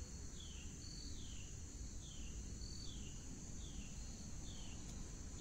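Faint outdoor background: a bird repeats a short falling chirp about once a second over a steady high-pitched insect drone.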